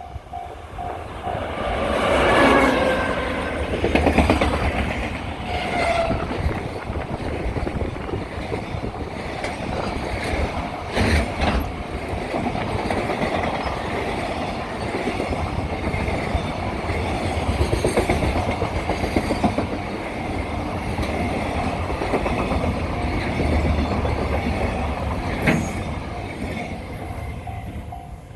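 An EF210 electric locomotive and its long freight train pass close by, the wagons' wheels clattering over the rail joints without let-up. A falling whine about two seconds in marks the locomotive going past. The level crossing warning bell rings at the start and again near the end.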